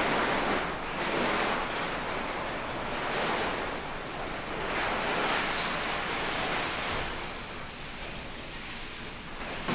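Large sheets of nylon-like fabric rustling and whooshing as they are lifted, dropped and swung through the air, the noise swelling and easing every second or two.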